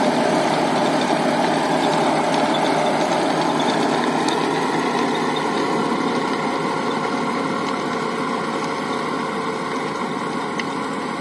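Sonalika DI 35 tractor's diesel engine running steadily while it drives a rotavator through dry soil. The sound fades slowly as the tractor pulls away.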